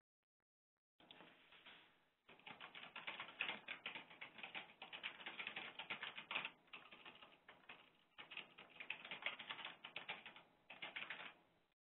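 Typing on a computer keyboard: quick runs of key clicks with short pauses, faint and heard through a narrow-band web-conference audio feed.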